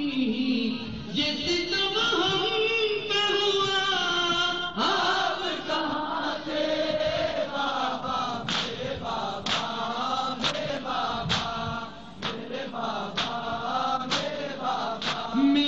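Male voices chanting a noha, a Shia mourning lament, in unison. From about halfway through comes a rhythmic slap of hands on bare chests (matam), roughly once a second, keeping time with the chant.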